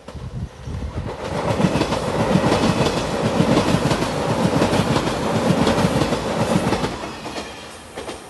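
JR Shikoku 8000 series "Shiokaze" Anpanman electric limited express passing close at speed, its wheels clattering over the rail joints. The clatter builds quickly, stays loud for several seconds, then fades as the train goes by.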